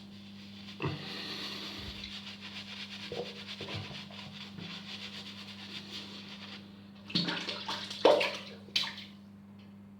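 Tap water running into a bathroom sink, starting about a second in and stopping about two thirds of the way through, followed by a few short splashes of water.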